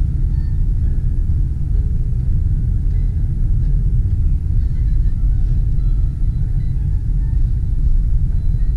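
Steady low rumble of a car driving on a paved road, heard from inside the cabin: road and engine noise.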